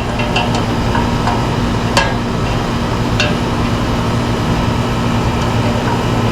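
Three sharp metallic clinks from a wrench on the bolt holding an air-conditioner condenser's fan motor, spread over the first few seconds, over a steady low hum.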